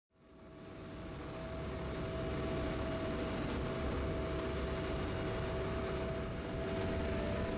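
Vaporetto water bus underway on open water: a steady engine drone with wind and water noise. It fades in over about the first second.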